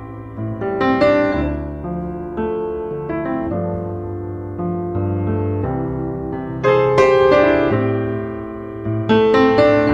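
Background piano music: a slow melody over bass notes, with louder chords struck about a second in, about two-thirds of the way through, and near the end.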